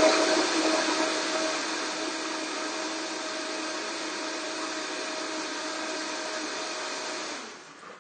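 Countertop blender running steadily as it blends cauliflower queso. It is switched off near the end, and the motor winds down to a stop.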